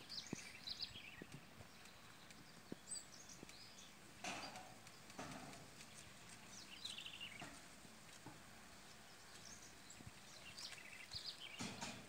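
Faint, scattered high chirps and short rapid trills of small songbirds, coming every few seconds. There are occasional soft clicks and brief rustles between them.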